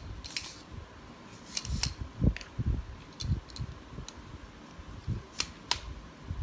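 Irregular sharp clicks and soft knocks as a parcel and its packaging are handled, over a faint steady hum.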